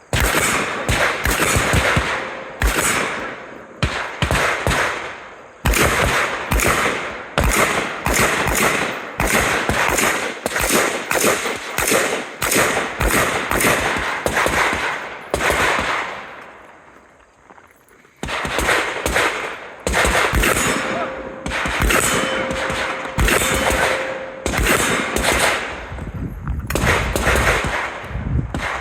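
Rifle shots fired one after another in quick succession, one to two a second, each with a ringing tail. There is a pause of about two seconds a little past the middle.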